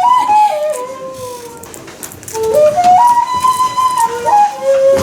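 A flute-like wind instrument playing a short stepwise tune. It holds a high note and steps down, then about halfway through climbs note by note back up and steps down again.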